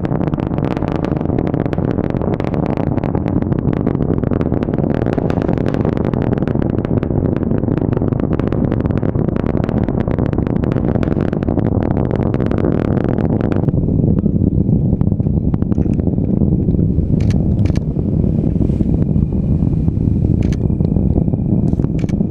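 Falcon 9 rocket's nine Merlin engines heard from afar at launch: a loud, deep rumble with dense crackle. About 14 seconds in, the crackle drops away, leaving the low rumble and a few sharp clicks.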